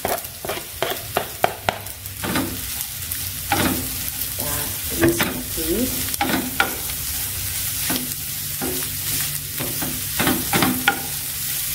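Sausage and shredded carrot sizzling in a non-stick frying pan while a spatula stir-fries them, with frequent sharp clicks and scrapes of the spatula against the pan.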